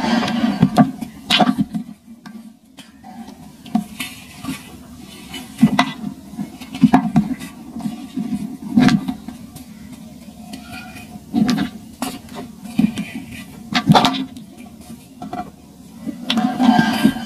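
Dry clumps of sand crushed and crumbled between the fingers, crunching in irregular bursts a second or two apart.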